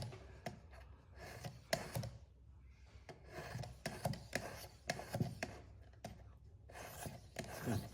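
Abrasive sharpening stone rubbed in uneven strokes against a steel broadhead clamped in a Work Sharp guided sharpener, with scattered light clicks and knocks from the rod and clamp between strokes.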